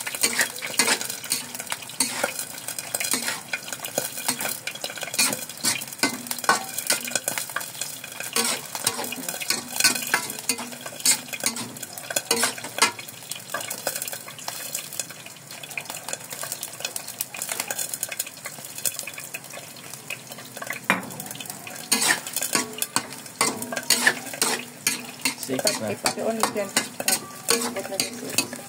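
Metal spatula scraping and clacking against a large metal wok while noodles are stir-fried, the strokes coming in quick irregular runs over a light frying sizzle.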